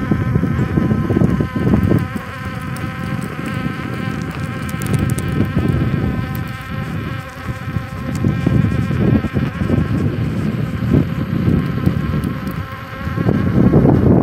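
KingSong electric unicycle's hub motor whining while riding, a buzzing whine of several pitches that waver slightly with speed. Wind rumbles on the microphone, heavier at the start and again near the end.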